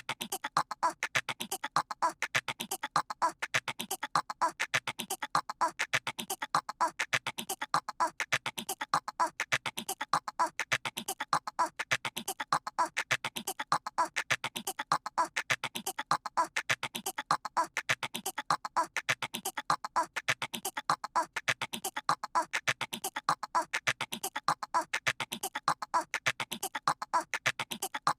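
A cartoon toddler's voice making rapid squirrel-like chattering noises, the same short chatter looping over and over in a steady rhythm.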